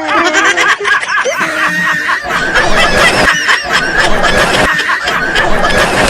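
Laughter: snickering and chuckling, loud and continuous.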